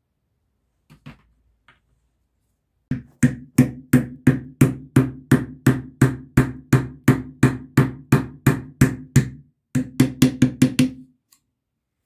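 Hammer blows driving a plastic cooling fan down onto an electric motor's shaft: steady strikes about three a second, each with a short low ring. After a brief pause comes a quicker run of blows.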